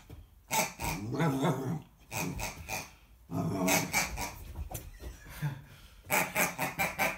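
American Akita puppy growling in play, in several separate bursts, with a rapid run of short, sharp noises near the end.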